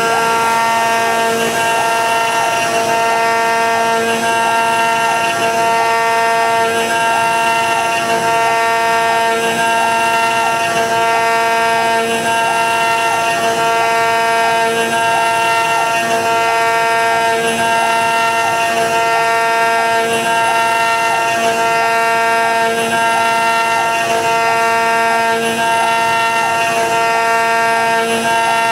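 CNC router spindle cutting a dense karri hardwood block: a loud, steady whine made of several tones, with part of the sound switching on and off in a regular pattern every second and a half to two seconds as the cutter works back and forth across the wood.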